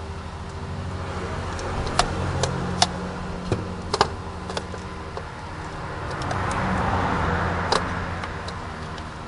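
Hands handling the wiring harness and connectors on a car's starter motor: scattered sharp clicks and small knocks of plastic clips and metal, mostly in the first half and once more near the end. A steady low hum sits underneath.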